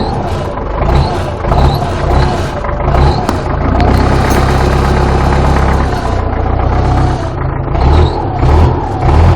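Belarus MTZ tractor's diesel engine running just after a hard cold start at −14 °C, revving up and down unevenly in repeated surges, with a steadier stretch midway.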